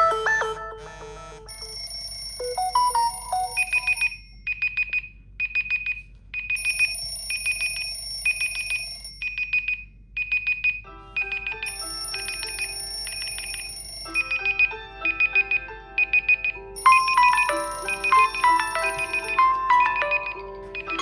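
Smartphone alarm and ringtone sounds. A short electronic melody plays first, then a high beep repeats about twice a second under chiming electronic melodies. A lower melody joins about halfway through, and the sound gets fuller near the end.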